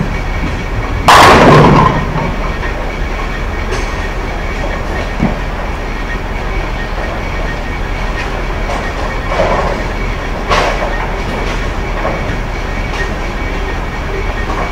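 A bowling ball hits the pins about a second in, giving one loud crash that lasts under a second. A steady low rumble of the alley follows, with two smaller clatters around ten seconds in.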